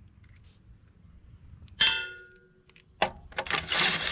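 A single sharp metal-on-metal clang about two seconds in, ringing briefly with several high tones, as steel tools or parts knock together. It is followed by a few seconds of scraping and handling noise.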